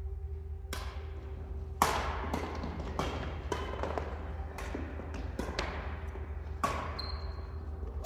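Badminton rackets hitting a shuttlecock in a doubles rally: a dozen or so sharp, irregular hits, some close together, the loudest about two seconds in. A steady low hum runs underneath.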